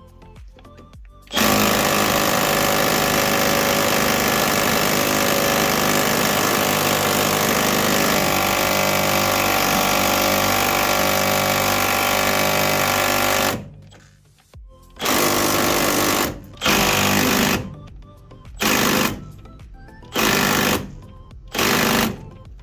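Impact wrench hammering on a rusted body-to-chassis bolt: one long run of about twelve seconds, then five short bursts. The bolt won't break loose.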